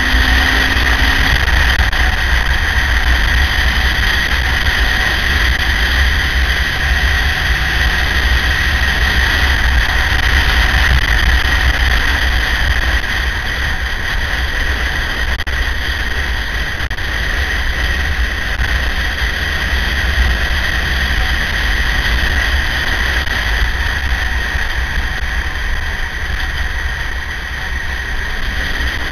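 Onboard sound of a KTM 950 motorcycle riding at speed: steady, heavy wind rumble on the microphone over the running bike, with a steady high-pitched whine.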